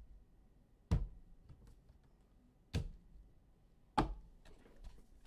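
Stacks of trading cards in hard plastic holders knocked down onto the tabletop: three sharp knocks spread over a few seconds, with fainter taps between.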